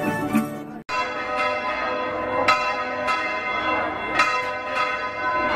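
Church bells ringing, struck again and again in quick succession so that the tones overlap. Plucked-string music cuts off sharply just before the bells begin.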